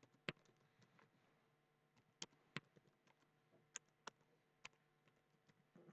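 Faint keystrokes on a computer keyboard: a few sharp, irregularly spaced clicks as a short message is typed.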